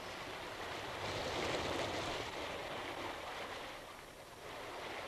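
A steady rushing noise like running water or surf, dipping briefly about four seconds in.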